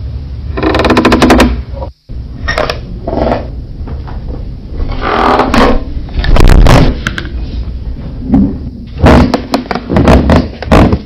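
Wooden floorboards creaking in a run of drawn-out creaks and crackles, heavily bass-boosted and distorted, with a brief dropout about two seconds in.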